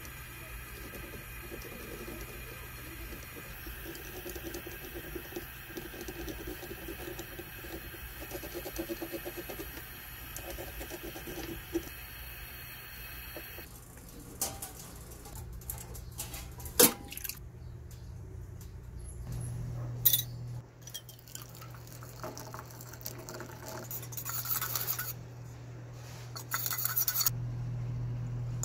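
Gas torch flame hissing steadily as a small gold-and-silver ring is soldered. About halfway through it stops, giving way to sharp metal clinks of tweezers and a stainless steel pot lid, and near the end liquid sloshing as the ring is handled in a small metal cup of liquid.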